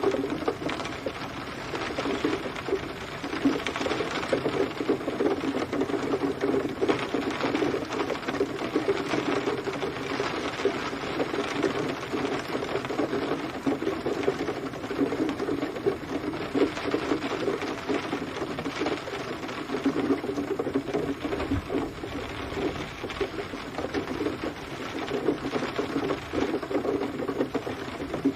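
Steady rain, a dense patter of drops striking a surface.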